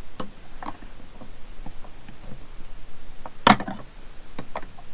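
Small metallic clicks and ticks from a tool working the set screw on a brass lamp gimbal's ring as it is loosened, with one sharper click about three and a half seconds in.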